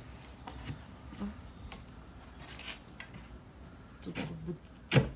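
Light rubbing and small clicks of chipboard furniture panels being shifted into place, then one sharp knock near the end as the cabinet's top panel is pressed or struck onto its fittings.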